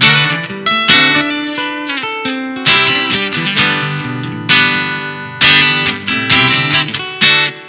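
Solo acoustic guitar playing an instrumental piece: chords struck roughly once a second, each ringing and fading, with picked single notes between them.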